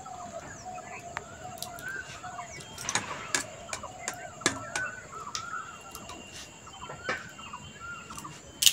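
A few sharp metallic clinks of kitchen utensils, over a faint wavering call that keeps repeating in the background.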